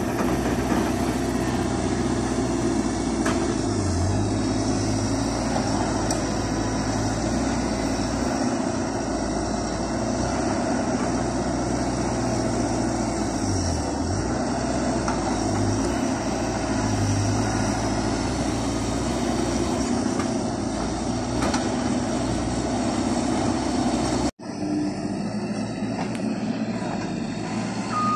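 Diesel engine of a tracked hydraulic excavator running steadily under work, its pitch shifting slightly as it digs. It cuts out for an instant near the end, then resumes.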